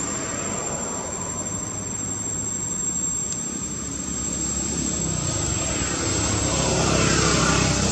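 A motor engine running off-picture, getting louder over the last few seconds.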